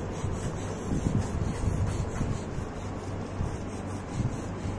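A teething baby grinding her teeth together: a gritty rasping scrape, repeated, with a few small sounds from her throat.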